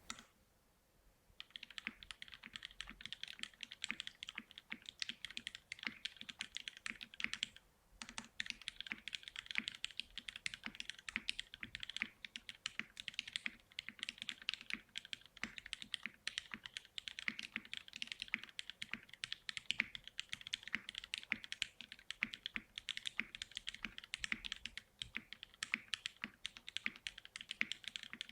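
Fast continuous typing on a custom mechanical keyboard with lubed Cherry MX Black Hyperglide linear switches in a polycarbonate plate and GMK doubleshot ABS keycaps. It starts about a second and a half in, with a brief pause near the quarter mark.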